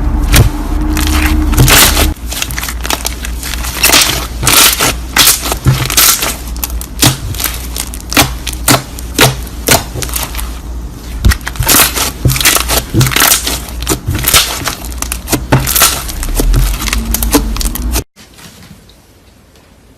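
Slime being squeezed and kneaded by hand, a dense run of wet clicks and pops that stops abruptly about eighteen seconds in.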